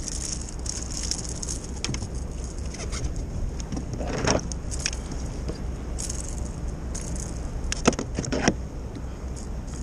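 Steady rumble of wind and rushing water against a kayak hull on choppy, fast-flowing water, with a few sharp clicks and light rattles from gear on the boat, the loudest about four seconds in and again near eight seconds.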